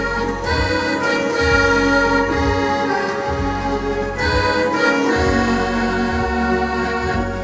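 Instrumental interlude on a Yamaha Tyros 4 arranger keyboard: sustained organ-like chords over a bass line that changes about once a second.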